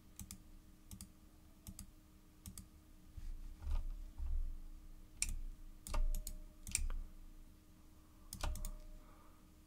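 Irregular sharp clicks from a computer mouse and keyboard, about a dozen, some in quick pairs, with a few dull low bumps on the desk in between, as a chart replay is stepped forward.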